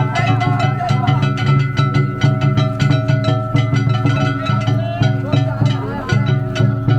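Danjiri hayashi festival float music: a fast, steady drum beat with plucked string instruments playing over it.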